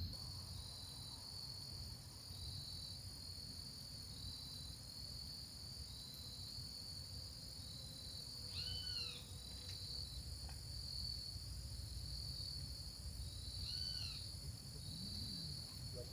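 Insects chirping in an even, repeating pulse over a steady high-pitched insect drone, with a faint low rumble beneath. Twice, about halfway through and again near the end, a short arched call from a bird or other animal cuts in.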